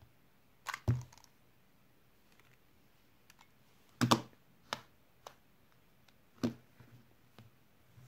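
A handful of short plastic clicks and knocks from handling a small 2x2x1 twisty puzzle cube and hands tapping a tablet's touchscreen timer. The loudest is a quick clatter about four seconds in, as the cube is turned in a split-second solve and the timer is stopped; the others are scattered single knocks.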